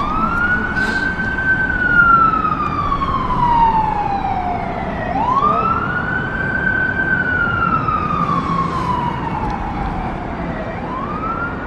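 Emergency vehicle siren sounding in a slow wail: it rises quickly, holds, then slides slowly down over about five seconds, and starts over twice, over a steady hum of traffic.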